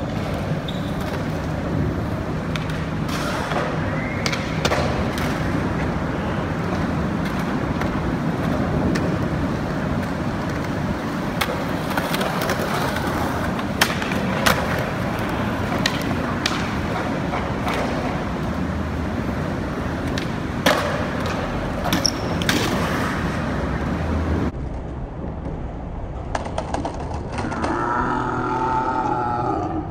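Skateboard wheels rolling on concrete, with several sharp clacks of the board and trucks hitting the ground and coping.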